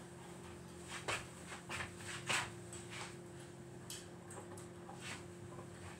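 A few faint, scattered clicks and knocks of household handling over a steady electrical hum.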